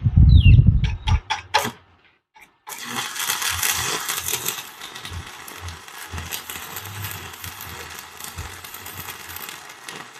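Stick welding with a 1/8-inch 6013 electrode, yellow-dot brand, with the machine at its maximum of about 120 amps. A loud thump and a few sharp taps come first as the rod is struck, since it is a little slow to start the arc. Then there are about seven seconds of steady arc crackle, which cuts off near the end.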